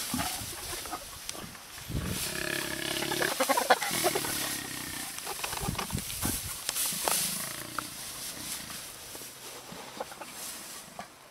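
Lion and spotted hyena vocalizations in a confrontation: growls and snarls, with a higher, held call about two seconds in. The calls fade toward the end.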